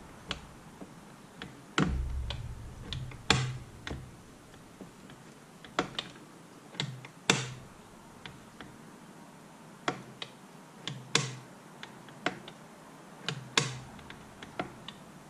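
Irregular light clicks and taps, about twenty of them spread unevenly, as parts inside an open Tuff Torq K66 hydrostatic transmission case are pressed and worked by hand to test whether the freewheel mechanism pushes out.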